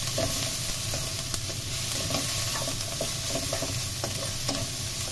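Sliced onion, garlic and spring onion sizzling in hot oil in a granite-coated nonstick wok as a spatula stirs and scrapes them, with light, irregular knocks of the spatula against the pan.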